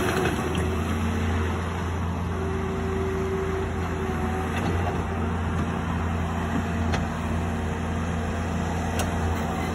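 Caterpillar skid steer loader's diesel engine running steadily as the machine drives about, a low, even hum with a few faint clicks.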